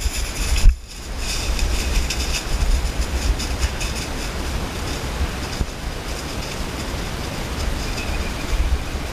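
Wind buffeting a handheld camera's microphone with a heavy low rumble, over crackling rustle of dry leaf litter underfoot.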